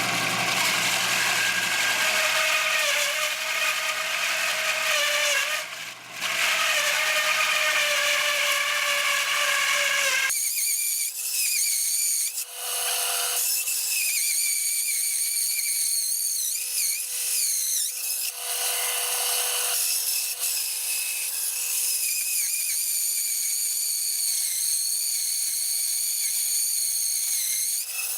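Shop-built band saw, driven by a 1/3 HP washing-machine motor, running as it resaws a board: a steady machine hum with a stack of tones. About ten seconds in the sound changes abruptly to a high, wavering whine, with two brief louder patches later on.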